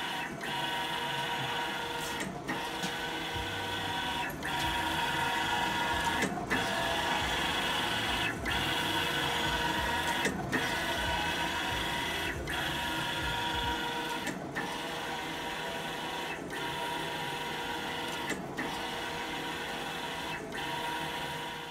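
Mimaki JV33-130 wide-format inkjet printer printing, its print-head carriage whirring steadily across the media pass after pass, with a brief break about every two seconds between passes.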